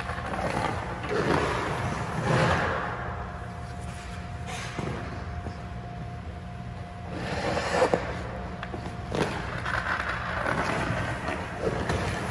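Hockey goalie's skate blades scraping the ice in a series of pushes and stops, with a sharp knock a little before the eighth second, over a steady low hum.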